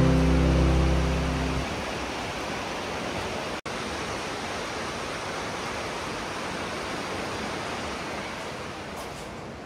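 Steady rush of fast-flowing water. Background music fades out in the first couple of seconds, and the water sound cuts out for a split second about three and a half seconds in.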